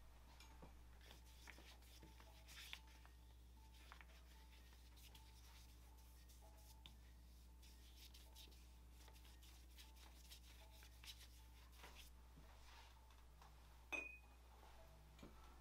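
Near silence over a steady low hum, with faint scattered strokes of a wet watercolour brush on paper, and one short sharp click with a brief high squeak near the end.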